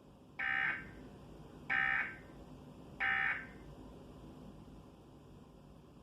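Emergency Alert System end-of-message code: three short, identical bursts of buzzy digital data tones, each about a third of a second long and about 1.3 seconds apart, signalling that the alert has ended.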